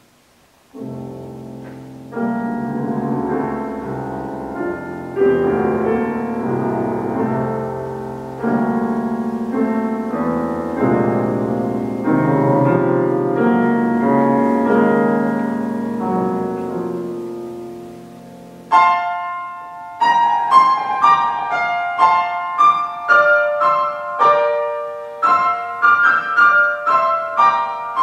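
Live classical music for cello and grand piano, with the piano most prominent. The music begins about a second in with slow, deep chords, each swelling and then dying away every few seconds. About two-thirds of the way in, the sound changes to brighter, higher piano notes struck in a quicker pattern.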